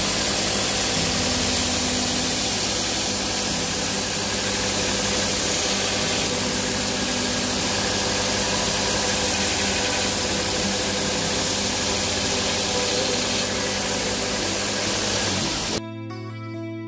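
Electric sharpening machine running steadily, its motor hum under a loud, even hiss, as the nippers are sharpened. About a second before the end it cuts off and acoustic guitar music begins.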